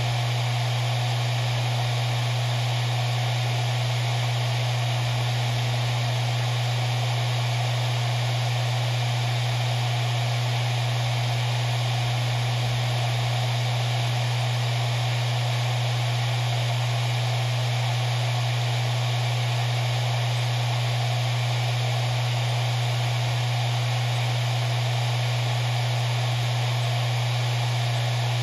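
Maxtor MaXLine Pro 500 four-platter 7200 RPM hard drive spinning steadily: a constant hum at its spindle speed under an even whirring hiss. There are no seek clicks.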